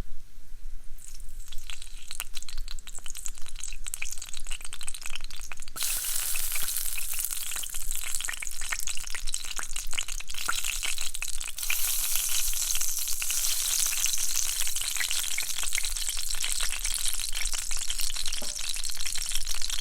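Bacon frying: separate greasy pops and crackles, thickening suddenly about six seconds in into a dense, steady sizzle that grows denser again about halfway through.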